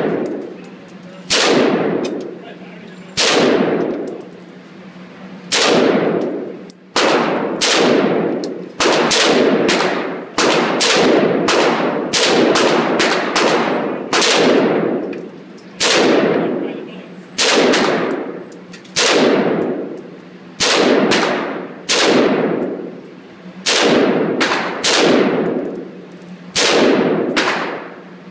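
An AR-15 rifle firing single shots, mostly about a second apart with some quicker pairs, about twenty in all. Each shot is followed by a long echoing decay.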